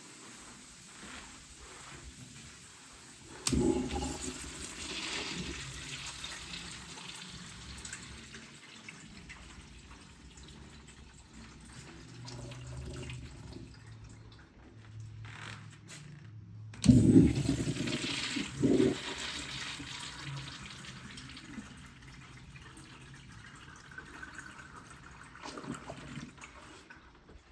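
Crane toilets flushed twice. Each flush starts suddenly with a loud rush of water that dies away over several seconds. The first comes about three seconds in and the second about halfway through.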